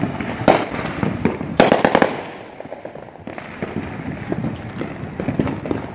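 Mortar-type aerial fireworks bursting close by: a sharp bang about half a second in, a quick run of cracks around two seconds in, then a long crackle of many small pops.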